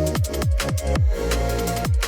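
Electronic background music with a regular beat of deep kick drums, each dropping in pitch, over steady bass.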